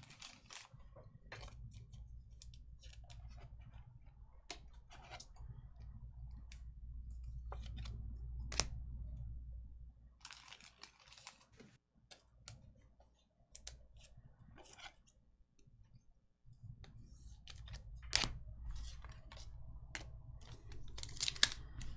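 Scattered light clicks, taps and rustles of trading cards and packs being handled on a table, over a low steady hum that drops out for a few seconds past the middle.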